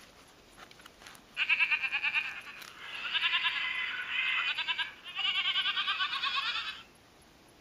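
Recorded goat bleats played from a children's sound book's small speaker: a series of wavering, quavering calls starting about a second and a half in and stopping just before the end, thin with no low end.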